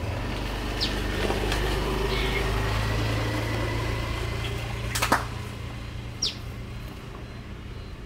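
Low steady mechanical hum that fades over the last few seconds, with two short, high, falling chirps from small aviary birds and a sharp click about five seconds in.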